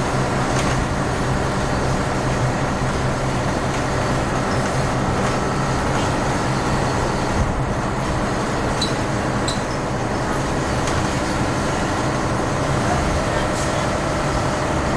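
Engine of a DAF MB 200 city bus with a manual Wilson gearbox, running at a steady pace with an even drone and no gear change, and a couple of faint clicks a little past the middle.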